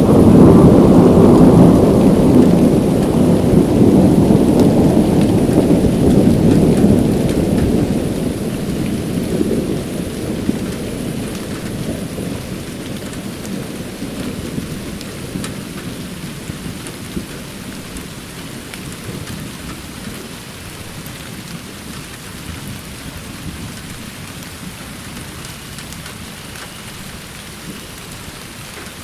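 Rain falling steadily. At the start a loud, low rumble dies away gradually over about ten seconds, leaving the rain alone.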